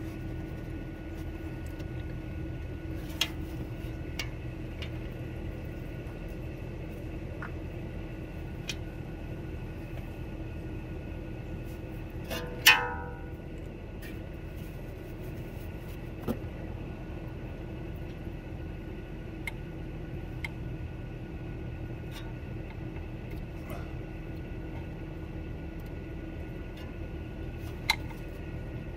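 Hand tools working on an SUV's front wheel hub and knuckle: scattered light clicks, and about halfway through one loud metallic clink that rings briefly. A steady hum runs underneath.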